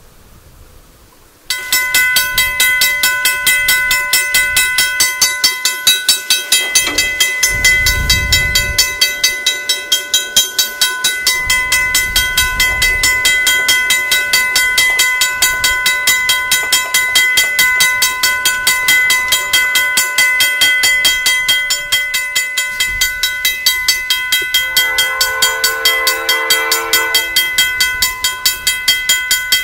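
Railway crossing bell starting up suddenly about a second and a half in and ringing rapidly and steadily, the crossing warning for an approaching train. Near the end the approaching locomotive's Nathan K5LA five-chime air horn sounds a chord, breaks off, and starts again.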